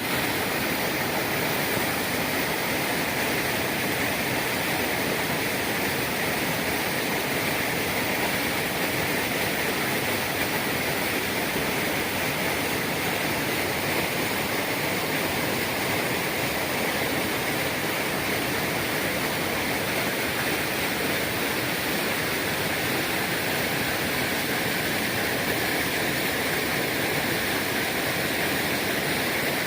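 Steady, unchanging rushing noise with no separate sounds in it.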